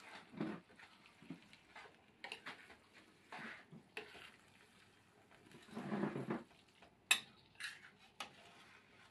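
Kitchen utensils and cookware clattering: scattered clinks and knocks, a louder, longer clatter about six seconds in, then a few sharp clicks.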